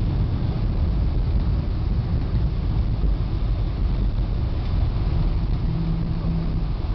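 Steady low rumble inside a Boeing 747's cabin during landing, from the engines and the airframe. A brief low hum comes in near the end.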